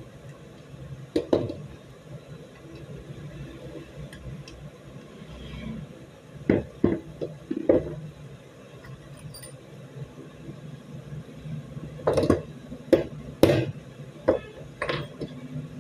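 Steel pistol parts from a Beretta 92FS being worked on a wooden bench: sharp metallic clicks and knocks. There is one about a second in, a quick run of four around the middle, and a denser run of loud knocks near the end as a small hammer taps at the slide.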